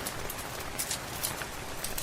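Steady rain hiss with a wood fire crackling, irregular sharp snaps and ticks several times a second over the rain.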